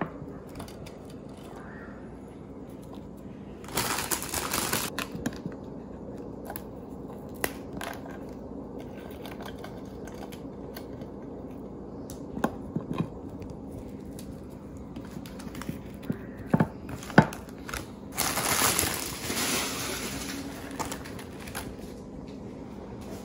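Kitchen handling sounds of ladyfinger biscuits being laid into a glass baking dish: scattered light clicks and taps, with two spells of crinkling plastic packaging, about four seconds in and again near eighteen seconds, over a steady low hum.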